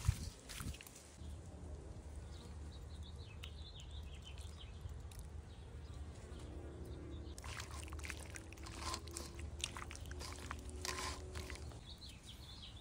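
Faint outdoor background: a steady low hum, with a few short high chirps and scattered soft clicks.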